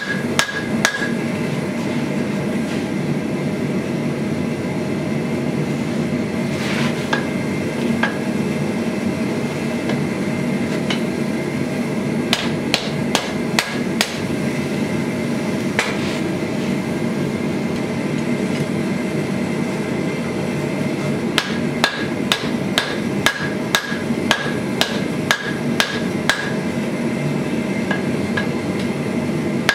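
Hand hammer striking a red-hot steel sword-guard bar on the horn of an anvil, in short bursts of quick blows with pauses between; some blows leave a brief metallic ring. A steady low rushing noise runs underneath.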